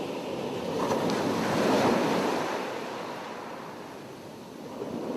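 Ocean surf washing on a beach: a wave swells to its loudest about two seconds in and fades away, with a smaller swell near the end.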